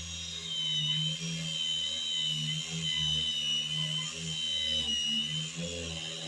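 Battery-powered angle grinder grinding into wood: a steady high whine that wavers and dips slightly as the disc bites into the mug's inside, over an uneven low hum.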